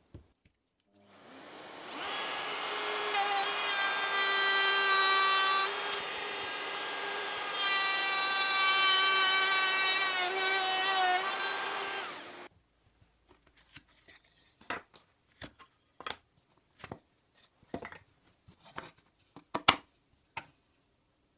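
Makita 18V cordless compact router spinning up about a second in and running with a high whine. It gets louder in two stretches while the bit cuts a slot through a wooden board, then cuts off suddenly a little past halfway. A scatter of light wooden knocks and clicks follows as the cut pieces are handled.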